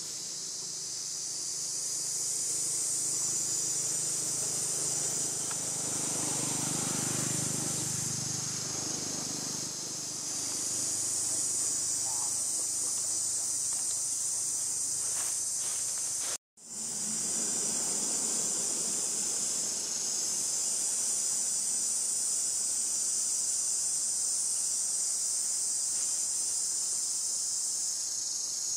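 Steady, high-pitched chorus of forest insects, swelling and easing slightly, that breaks off for an instant just past the middle.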